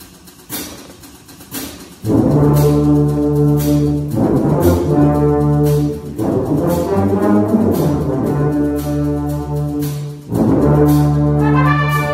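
Brass band of cornets, trombones and tubas playing a rock-style arrangement. It opens with sharp percussion hits about once a second. About two seconds in, the full band comes in loud with held brass chords in short phrases over the continuing beat.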